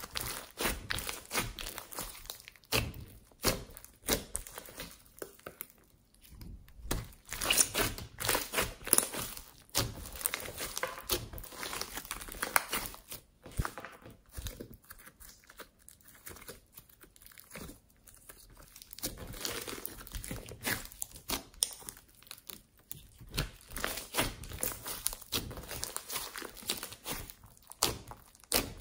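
Hands kneading and pressing a large lump of foam-bead slime: squishing with dense, irregular crackles and pops that come in clusters, louder at times and sparser at others.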